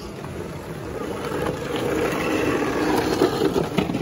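Crowd din on an outdoor ice rink that grows louder from about a second in.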